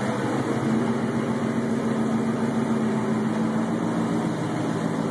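Ford Mustang engine running steadily on a chassis dyno: an even, unchanging engine hum with no revving.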